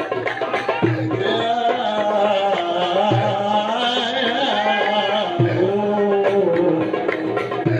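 Egyptian religious chanting (inshad): a male singer carries a wavering melody with violin and a drum, and deep drum strokes fall about every two seconds.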